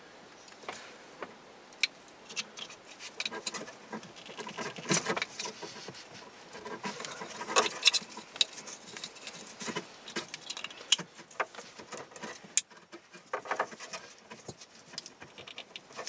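Plastic stereo wiring-harness connectors and loose wires being handled and plugged together behind a car dashboard: a run of rustling with many sharp plastic clicks and clatters.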